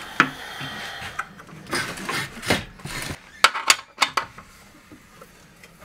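Clicking and clacking of an Evolution mitre saw's hard plastic pivot housing and its metal parts being handled. A string of sharp knocks comes in the first four seconds, then it goes quieter.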